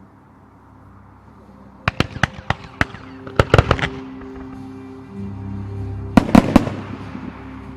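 Fireworks going off. Sharp cracking reports come in three clusters, about two, three and a half and six seconds in, over music with held notes.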